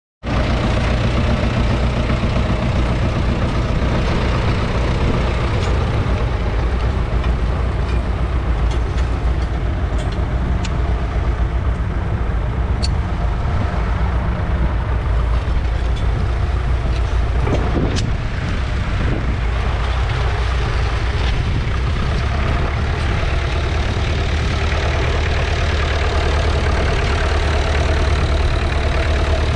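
1969 McCormick 434's 2.5-litre four-cylinder diesel engine running steadily, with a brief knock about eighteen seconds in.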